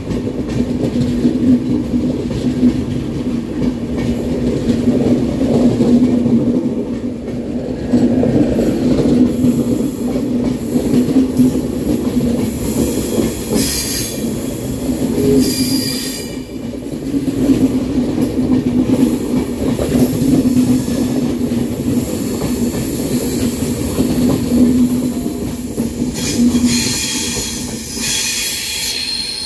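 Passenger coaches of an express train rolling past on the track, a steady loud rumble of wheels on rails. High-pitched wheel squeal rises over it midway and again near the end as the last coach goes by.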